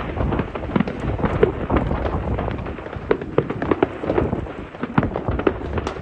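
Many fireworks going off at once at a distance: a continuous rumble of overlapping bangs and crackles with no single burst standing out.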